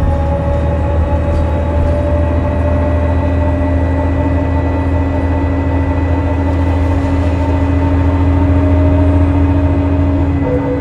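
The Cummins ISL 8.9 L turbodiesel inline-six of a 2005 New Flyer D40LF bus running, a steady low drone with a high, thin whine held above it, growing slightly louder near the end.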